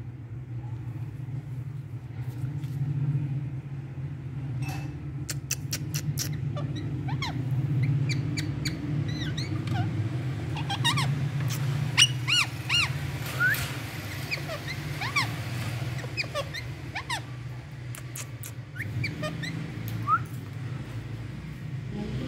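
Rose-ringed parakeet chattering in many short chirps and whistles, over a steady low hum, with a run of sharp clicks in the first several seconds.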